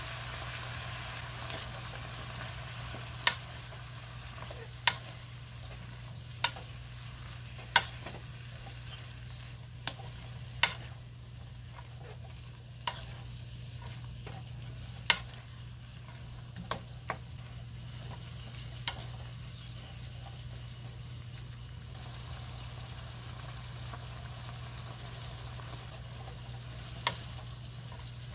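Bean sprouts and vegetables stir-frying in a pan with a light sizzle, turned with a wooden spatula that knocks against the pan every second or two.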